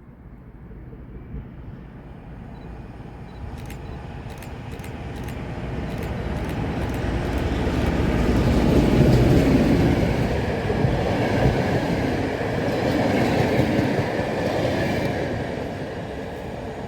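A freight train approaching and passing, growing steadily louder to a peak about halfway through, with a run of sharp clicks from the wheels early on and the rumble of the wagons rolling by after.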